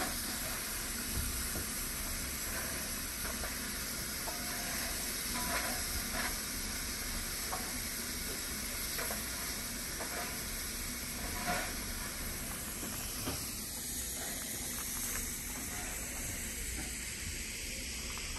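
Steady hiss of steam escaping from Southern Railway S15-class steam locomotive No. 825, with a few faint knocks.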